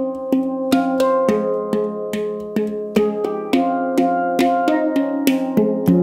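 Handpan tuned to the F Equinox 10 scale (F Ab C Db Eb F G Ab C F), played with the fingers. A running melody of struck notes, about two or three a second, each note ringing on under the next.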